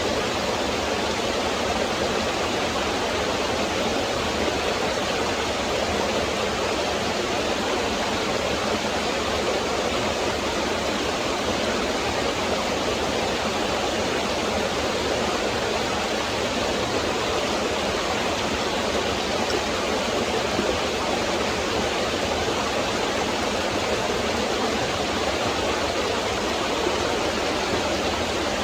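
Woodland stream flowing, a steady rush of water with no change in level.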